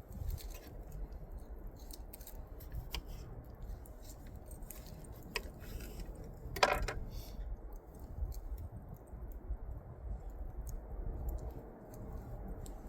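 Scattered light clicks and clinks of camp cooking gear being handled, with one sharper click about seven seconds in, over a steady low rumble.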